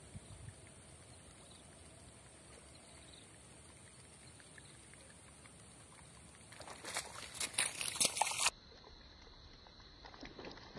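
Faint open-air background, then about six and a half seconds in, roughly two seconds of loud, irregular water splashing at the surface. Splashing starts again near the end.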